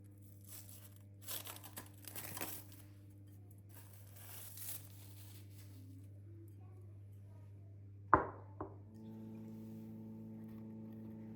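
Wrapping being rustled and torn in a few short scratchy bursts. About eight seconds in there is a sharp click, followed by a smaller one, and then a steady low hum sets in, as of a small appliance switched on.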